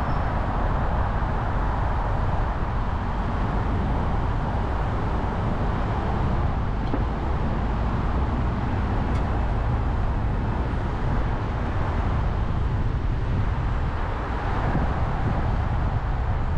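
Steady road and tyre noise of a car driving along a city road, a constant low rumble that hardly changes.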